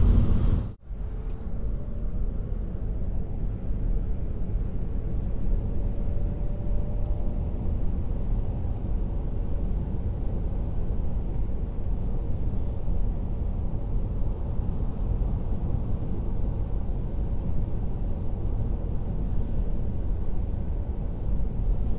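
Steady low rumble of road and tyre noise from a 2018 Opel Ampera-e electric car driving along, with a faint steady whine in the mix. The sound cuts out briefly under a second in.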